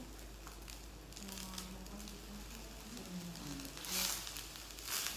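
Eating at a table: small clicks of chopsticks and dishes, and two short, loud slurps from a small bowl about four and five seconds in. A faint low voice sounds underneath in the middle.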